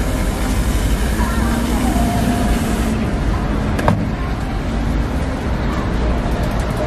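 Whipped cream spraying from an aerosol can, a steady hiss that cuts off about three seconds in, over steady street noise, with a single click shortly after.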